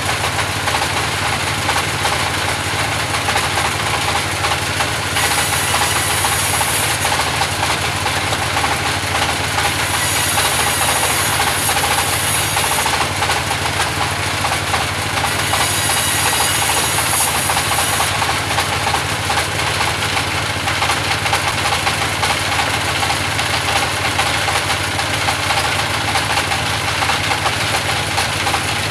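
Band sawmill running steadily as it saws logs into pallet timber, a dense mechanical running noise. A sharper, higher hiss comes and goes several times, each lasting a couple of seconds.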